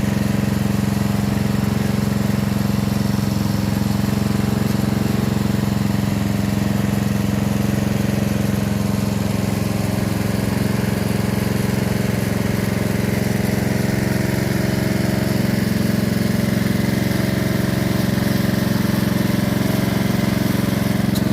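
Engine of a corn-shelling (threshing) machine running steadily at constant speed.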